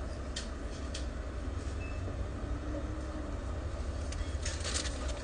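Car idling, a steady low rumble heard from inside the cabin, with a few light clicks about half a second and a second in and some rustling near the end.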